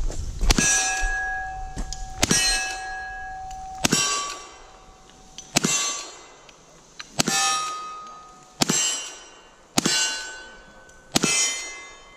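Rifle shots at steel targets, eight of them about one and a half seconds apart. Each shot is followed by the ringing of a struck steel plate, a different pitch each time, fading before the next shot.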